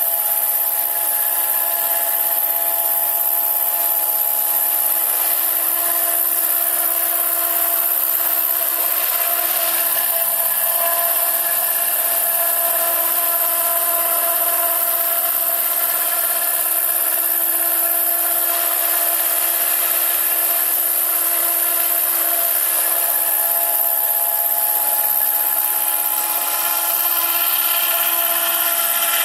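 Electric motor and 1.85 m rotor of a scale NH-90 model helicopter, hovering and manoeuvring at low height. It makes a steady whine with several held tones over a loud high hiss, and its pitch stays level throughout.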